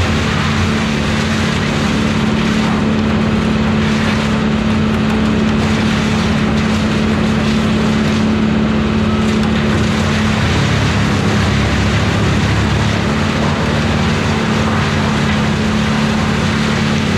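Wood chipper's engine running steadily at a constant speed, a loud even drone with no load changes.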